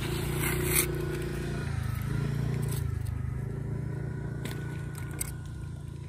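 Scraping and tearing of tuna skin and flesh as the fish is worked apart by hand and knife, loudest about half a second in, with a few sharp clicks later on. A steady low hum runs underneath.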